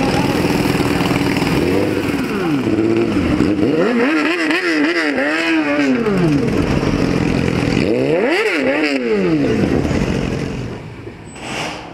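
Sport motorcycle engine revved hard in quick, high-pitched blips that rise and fall, in three bouts about three, five and eight seconds in. It dies down near the end.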